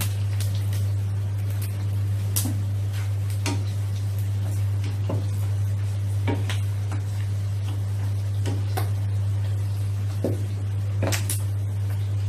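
Pork pieces deep-frying in bubbling oil in a wok, with metal tongs clicking and tapping against the pan about a dozen times as the pieces are turned. A steady low hum runs underneath throughout.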